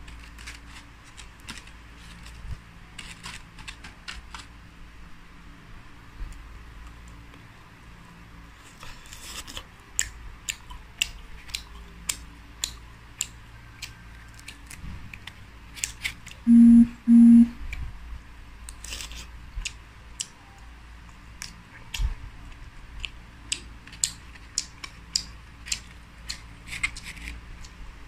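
Crisp crackles and snaps as deep-fried whole small birds are torn apart by hand and chewed. About halfway through come two short, loud electronic beeps, one right after the other.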